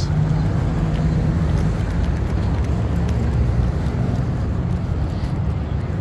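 Car traffic driving by on a wide multi-lane street, heard as a steady noise, with wind rumbling on the microphone.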